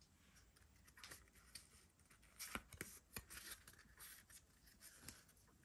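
Faint light clicks and rubbing of a stack of Pokémon trading cards being handled and slid against one another in the hands, a few soft ticks scattered through.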